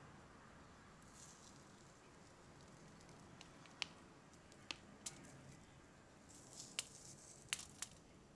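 Faint, crisp snaps and crackles of a chocolate-covered biscuit being broken and crumbled by hand: about six sharp little cracks, most of them in the second half, with light rustling.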